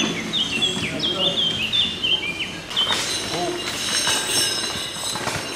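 A songbird singing a run of short, repeated, falling notes over steady outdoor noise, with people's voices coming in partway through.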